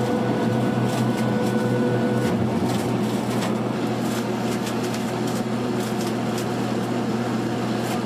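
Machinery running with a steady hum and scattered light clicks; a thin higher whine in it stops about two seconds in.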